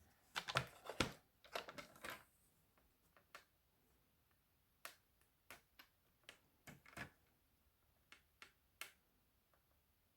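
Card stock being trimmed and handled on a craft desk: a short burst of cutting and rustling in the first two seconds, then scattered light clicks and taps.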